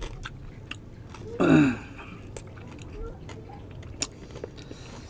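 Close-up mouth sounds of people chewing bagnet (deep-fried pork belly) and rice, with scattered wet clicks and lip smacks. A loud 'mmm' of enjoyment, falling in pitch, comes about a second and a half in, and there is a sharper click about four seconds in.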